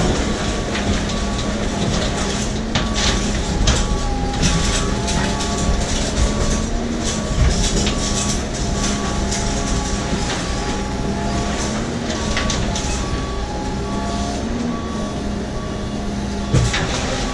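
Truck-mounted hydraulic crusher arm compacting the contents of a roll-off dumpster: the truck's engine and hydraulics run steadily while debris cracks and crunches under the arm. A short electronic warning beep repeats about twice a second.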